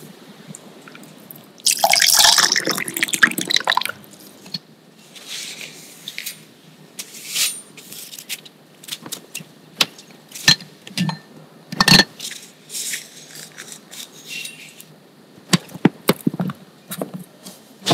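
A tap runs briefly into a sink, followed by a string of drips and small sharp clicks and knocks. Near the end a knife cuts down through a chilled chocolate biscuit cake on a plastic tray.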